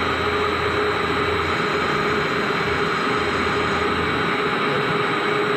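CNC lathe running, its spindle turning a metal workpiece under the cutting tool: a steady machining noise with a constant whine. A low hum underneath drops away about a second and a half in.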